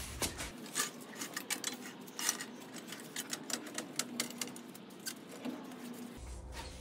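Irregular metal clinks and clanks of a floor jack being moved into place and pumped up under the truck's front suspension.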